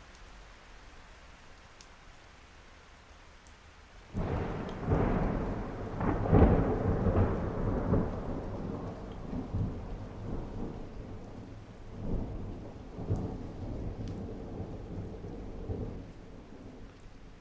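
Soft, steady rain, then about four seconds in a clap of thunder breaks in and rolls on through several loud swells before dying away under the rain near the end.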